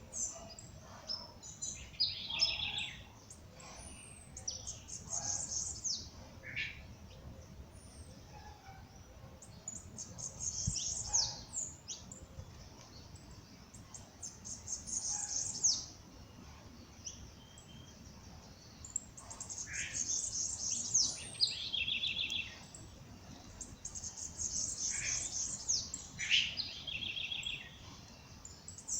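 Songbirds singing in a dawn chorus: high, rapid trilled phrases repeated every few seconds, overlapping with lower trills and short single notes.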